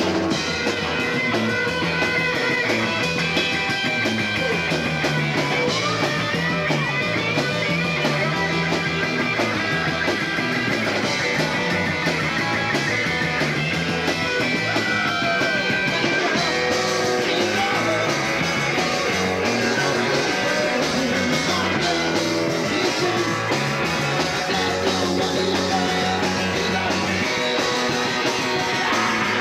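A rock band playing live, electric guitar over drums, loud and continuous.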